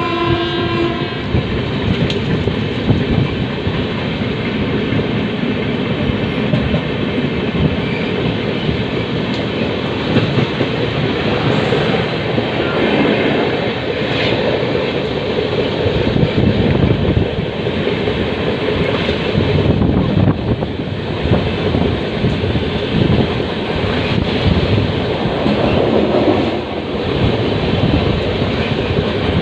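Moving passenger train, the Sadbhavna Express, running on the rails with a steady rumble and clattering wheels. A train horn dies away about a second in.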